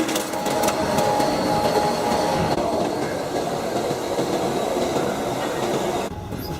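Sawmill machinery running with a continuous rapid rattle under a steady hum, which changes abruptly about six seconds in.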